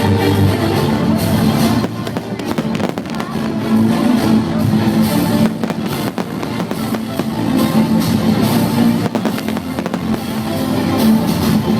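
Fireworks bursting, many sharp cracks and bangs in quick succession, over loud music with drums.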